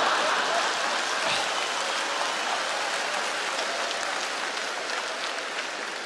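Studio audience applauding, the clapping slowly dying down.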